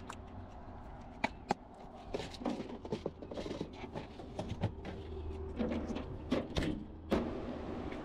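Irregular clicks, knocks and brief rattles of small parts being handled, as a fuse is fetched and fitted into the car's fuse box, over a steady low hum.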